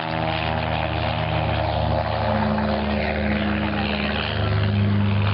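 Propeller airplane's piston engine running steadily, its low hum strengthening about four seconds in.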